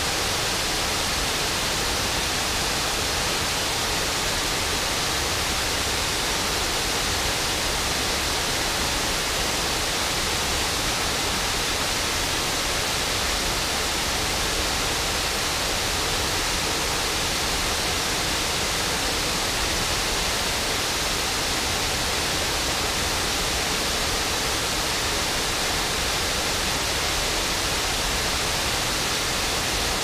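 Water pouring over a low stone dam and rushing across the rocks below: a steady, unchanging rush.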